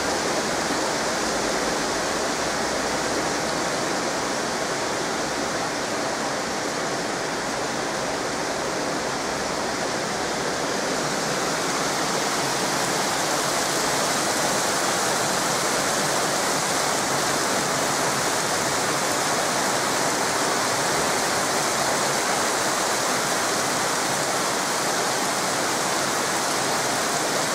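Heavy rain pouring down in a downpour: a steady, dense hiss of water that grows slightly stronger partway through.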